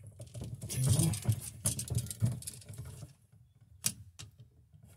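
Flathead screwdriver turning and scraping on a GFI receptacle's terminal screws as they are checked for tightness: a run of small clicks and scrapes, with one sharper click about four seconds in.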